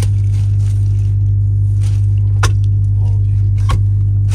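Clear protective plastic film crinkling and rustling as it is peeled off the bunk of a new truck's sleeper cab, with two sharp clicks partway through. A loud steady low hum runs underneath.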